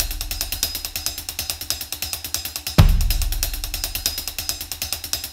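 Background music: a steady drum beat with fast hi-hat ticks over a low bass, and a deep bass hit about halfway through.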